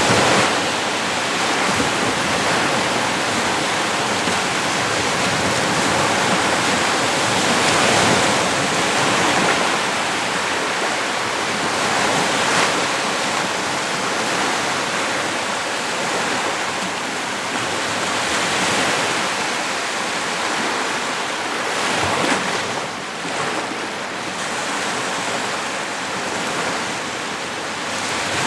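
Small waves washing onto the Lake Huron shore, a steady wash of surf that swells and eases every few seconds.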